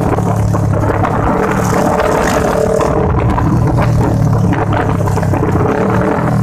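Motorcycle engine running steadily under riding load, mixed with heavy wind and road noise on the microphone.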